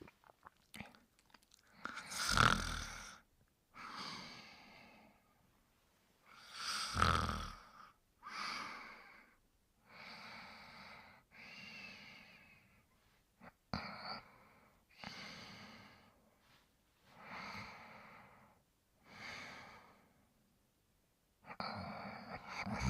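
Sleep snoring: two loud snores about two and a half and seven seconds in, then softer snoring breaths roughly every two seconds.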